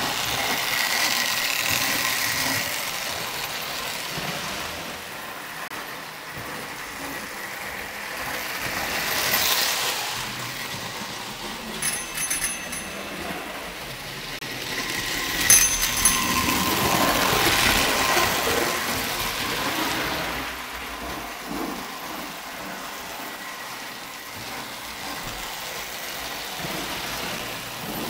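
Marx O-scale toy train running on three-rail track: its electric motor and wheels give a steady rattling whir that swells louder as the train comes close. A few sharp clicks come through in the middle.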